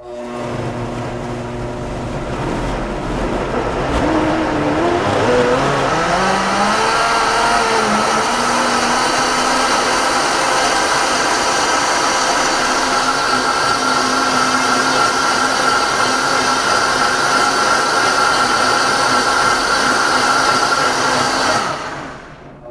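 Vitamix blender running on a full jar of fruit, greens and water: the motor starts, climbs in pitch over the first few seconds, runs steadily at high speed, and stops suddenly near the end. For part of the run the contents are not turning over and are being pushed down into the blades with the plastic tamper.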